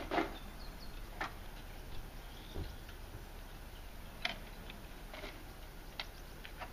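Faint, irregular light clicks and knocks, roughly one a second, over a low steady hum.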